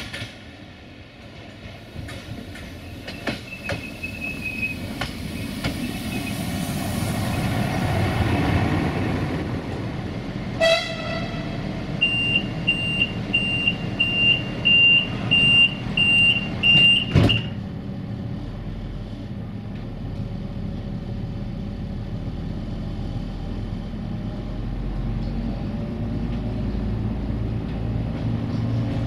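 A train approaching and passing, its rumble building to a peak about a third of the way in. A short horn toot follows, then a run of about ten short high beeps, roughly two a second, which stops abruptly. A steady low rumble carries on after it.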